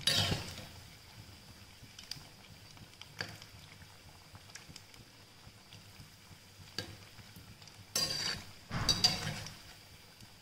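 Banana flower vadai sizzling in hot oil in a stainless steel kadai, a faint steady hiss. A perforated metal skimmer clinks and scrapes against the pan as the vadai are turned, with the loudest scrapes and splashes about eight and nine seconds in.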